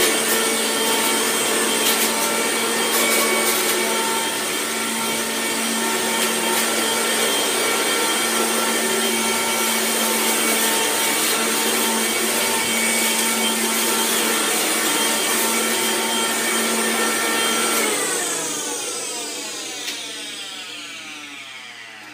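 Vacuum cleaner running with a steady motor whine and a few crackles, then switched off about 18 seconds in, its motor winding down with a falling whine.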